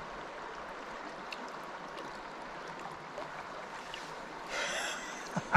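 Steady rush of a shallow river flowing over stones, with a brief louder swell of splashing water near the end.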